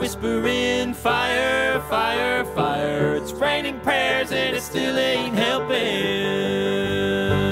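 Bluegrass band playing a song on banjo, mandolin, acoustic guitar and upright bass, with sung harmony vocals. The singing stops about six seconds in, leaving held notes and then the bass and picked strings carrying on.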